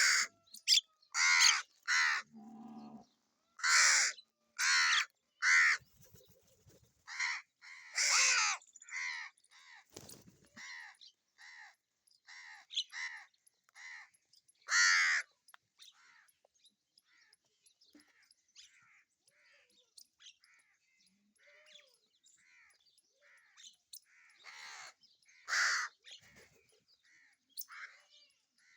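Crows cawing over and over, several birds at once. Loud harsh caws come in quick succession through the first half, then fainter, scattered calls, with a few loud caws again near the end.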